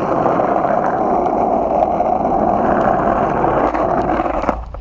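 Skateboard wheels rolling over pavement, a steady rolling rumble that stops abruptly near the end.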